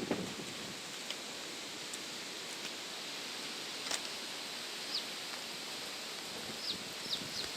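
Steady outdoor background noise with a few sharp ticks scattered through it and several short, high, falling chirps in the second half.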